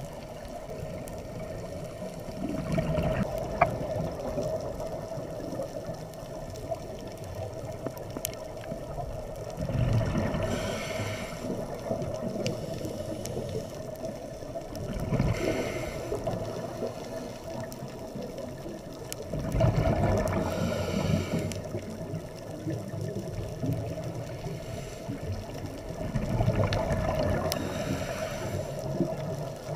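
Underwater sound of a scuba diver breathing: the regulator's exhaled bubbles rush out in a surge about every five seconds, over a steady hum.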